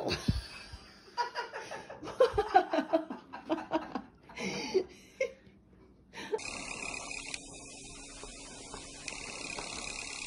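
A person laughing in short chuckles for the first few seconds. After a brief lull comes a steady hiss with a faint thin high tone.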